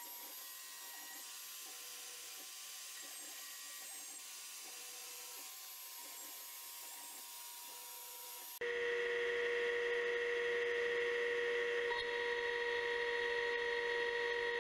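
CNC milling machine running: a faint steady machine hum with hiss, then, after an abrupt jump about two-thirds of the way in, a louder steady high spindle whine as the end mill works the clear block.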